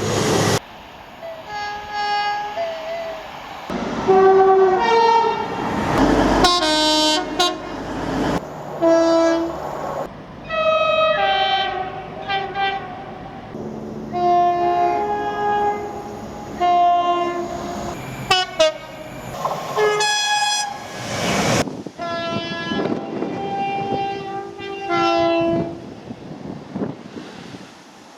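Train horns sounding one after another from a succession of different trains, mostly short two-tone blasts alternating a high and a low note, each cutting abruptly to the next. Twice the loud rush of a train passing close by comes between the horns.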